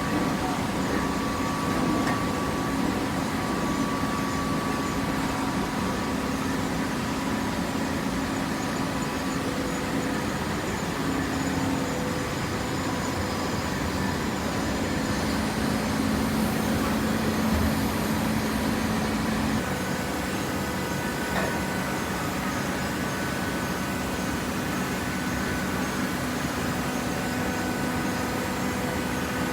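Industrial machinery running steadily: a constant mechanical noise with several humming tones that shift now and then.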